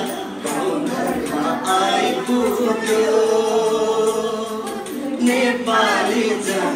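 Several voices singing a song together, with a long held note in the middle before the singing picks up again near the end.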